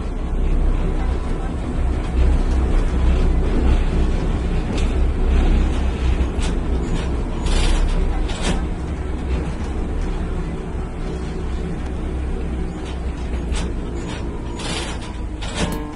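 Heavy truck's diesel engine running at idle, a steady deep rumble, with a few short air hisses around the middle and again near the end.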